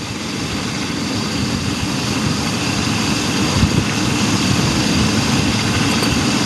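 Chevy Astro van engine idling steadily with a whooshing rush, growing slightly louder over the first few seconds.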